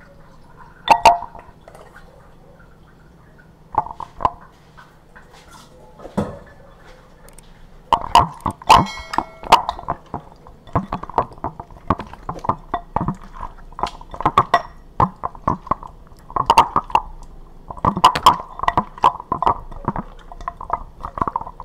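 Raw ribs squelching and slapping wetly as they are tossed by hand in a liquid marinade in a glass bowl, with knocks against the glass and one ringing clink about nine seconds in. Only a few isolated sounds for the first eight seconds, then steady busy squishing.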